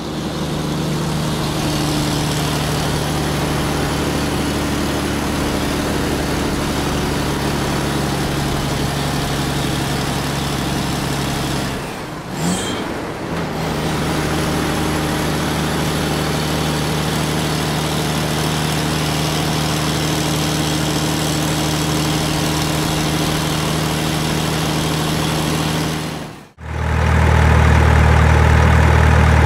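Truck engine running at a steady pitch, with a faint high whine over it. It breaks off briefly about twelve seconds in and again near the end, after which a louder, deeper engine hum takes over.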